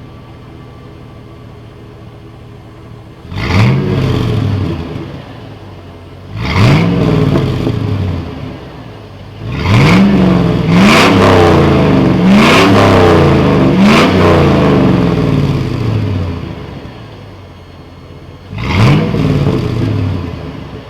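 5.3-litre LM7 V8 pickup breathing through a single-chamber performance muffler, idling with a low burble, then revved in sharp blips that each fall back: one about three seconds in, another near six seconds, a quick run of four in the middle, and a last one near the end.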